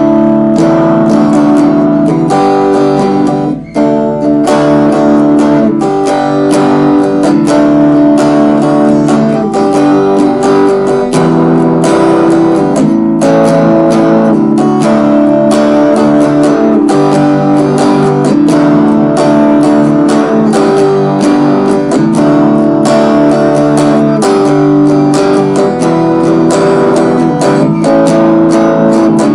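Cort solid-body electric guitar picked through a clean-sounding amplified signal, playing a short improvised instrumental with sustained, overlapping notes. It breaks off briefly about three and a half seconds in, then carries on.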